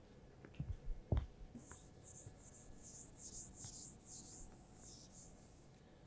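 Felt whiteboard eraser wiping a whiteboard clean: a run of short, faint, hissing back-and-forth strokes, about three a second, starting about a second and a half in, after a couple of light knocks.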